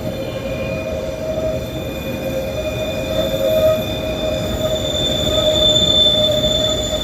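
Diesel freight locomotive running at full throttle, hauling up a mountain grade: a steady low engine rumble under sustained high-pitched wheel squeal, which grows louder from about halfway through.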